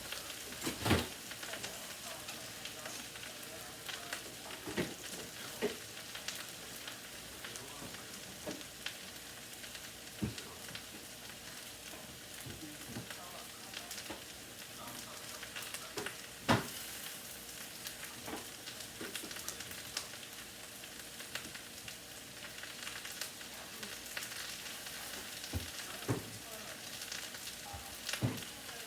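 Potatoes and mushrooms frying in a pan, a steady sizzle, with a few sharp knocks scattered through it, the loudest about halfway through.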